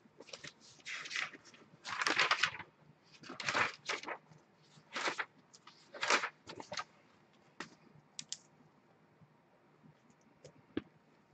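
Paper envelopes rustling and shuffling in the hands, in several short bursts, then fading to a few faint ticks near the end.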